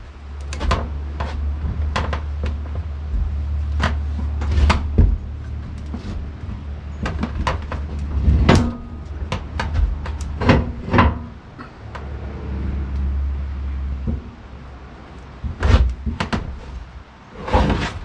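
Irregular wooden knocks and clunks as a log slab is levered with a wooden-handled bar and shifted about on a steel sawmill bed, with a low hum that comes and goes.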